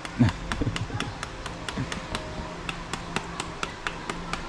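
Knife blade tapping quickly into a hand-held green papaya, about five light chops a second, cutting it finely for shredding into papaya salad.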